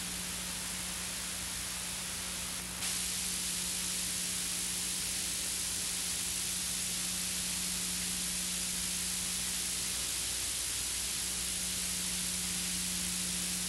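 Steady static-like hiss with a faint low hum underneath, the noise floor of an old film soundtrack; the hiss steps up a little in level about three seconds in and then holds steady.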